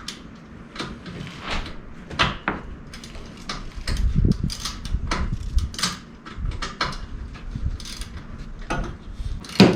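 Irregular metal clicks and knocks of bolts, washers and hand tools being handled and fitted while a rock slider is bolted onto the frame of a side-by-side, with heavier deeper knocking about four to six seconds in.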